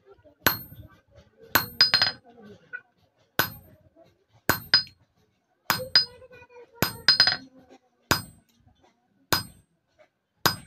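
Hand hammer striking a small steel chisel held on a thin sickle blade resting on an anvil, with the blade being worked cold: about a dozen sharp, ringing metallic clinks, roughly one a second, some in quick pairs.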